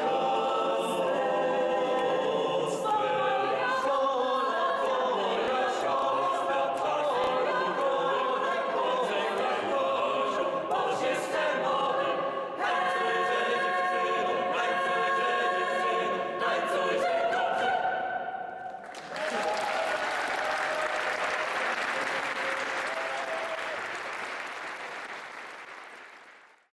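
Mixed choir of men's and women's voices singing a cappella; the song ends about 18 seconds in. Audience applause follows and fades out near the end.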